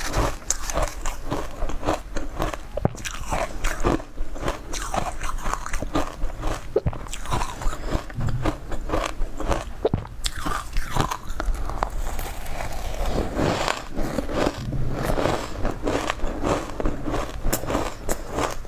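Close-miked crunching and chewing of mouthfuls of shaved ice: a dense, irregular crackle of ice breaking between the teeth.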